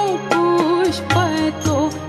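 Jain devotional song (stavan): a woman's voice singing held notes with gliding ornaments over steady percussion strokes and instrumental accompaniment.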